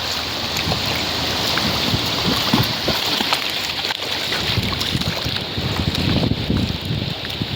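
Wind buffeting the microphone in irregular gusts over the steady hiss of sea waves washing on the shore.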